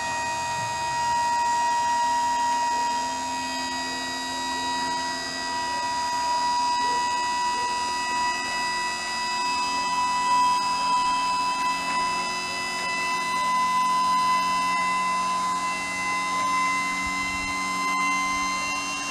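A steady high-pitched mechanical whine from the 1988 Ford F7000 rollback truck, rising slowly and slightly in pitch, with a lower steady drone underneath.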